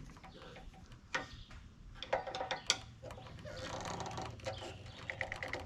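Metal hand tools being handled: a few sharp separate clinks, then a run of quick ratchet clicks near the end as a socket wrench is worked.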